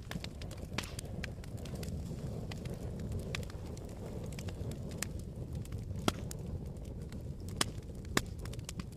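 Wood fire in a fireplace burning with a steady low rumble, broken by scattered sharp crackles and pops. The loudest pops come in the second half.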